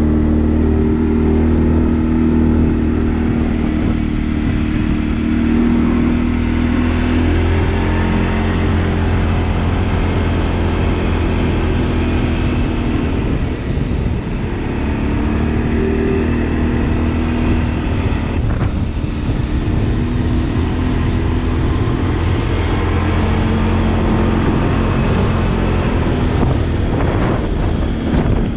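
Engine of a rented ATV running steadily while being ridden, its pitch rising and dipping a little with speed.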